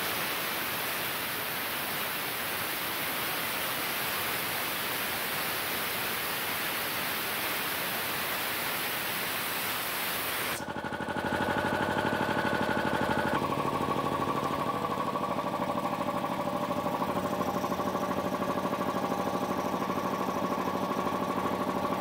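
Compressed air hissing out of an Adachi air compressor's tank through its opened valve as the pressure drops. About ten seconds in the hiss cuts off suddenly and the compressor's electric motor and twin-cylinder pump are heard running steadily, with a slight change in pitch a few seconds later.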